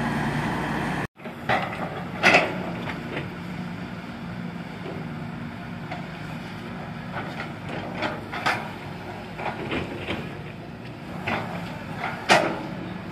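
Heavy diesel machinery running steadily, cut off abruptly about a second in; then a quieter low engine hum with irregular sharp knocks and clanks, the loudest about two seconds in and near the end, typical of excavators digging.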